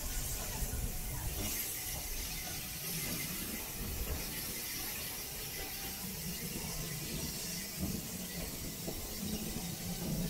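Rhaetian Railway Bernina Express train rolling through a tight curve, heard from the carriage: a steady low rumble of wheels on rail with a high, hissing wheel squeal that grows louder about a second and a half in.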